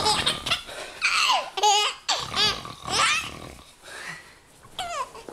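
Baby laughing in a run of high-pitched, squealing bursts with a wavering pitch over the first three seconds, then quieting, with one short laugh near the end.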